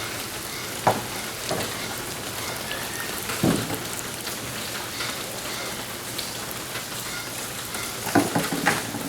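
Steady rain falling on wet ground and water. There are a few brief, louder noises about a second in, around three and a half seconds in, and near the end.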